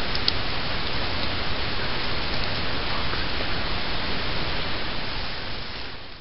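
Steady rush of wind buffeting the camera microphone, with a couple of faint ticks just after the start; it fades out near the end.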